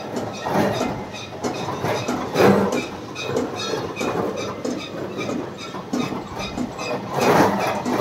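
Silage baler machine running, its inclined conveyor belt and chain drive clattering unevenly, with a faint high squeak repeating throughout.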